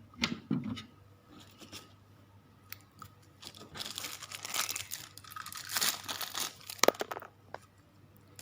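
Handling noise from hands working with the parts: a couple of knocks in the first second, then a few seconds of crinkling, rustling and tearing sounds, ending with a sharp click about seven seconds in.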